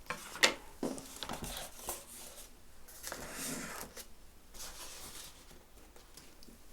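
Foam and plastic model-plane parts being handled and fitted together: scattered light clicks and brief rustles.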